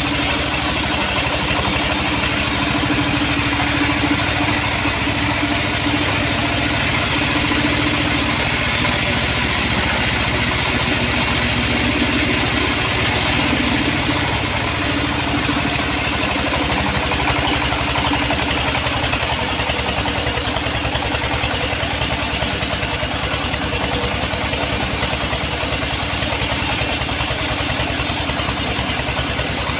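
Homemade bandsaw sawmill running steadily, its engine giving a rapid even pulsing, with a steady hum that fades out about halfway through.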